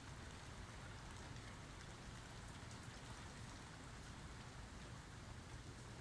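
Steady rain falling, a soft even hiss with scattered faint drips; no thunder.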